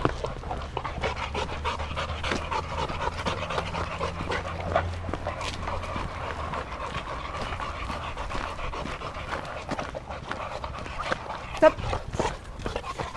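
Boxer dogs panting, a quick, continuous run of breaths, with one louder sharp sound about twelve seconds in.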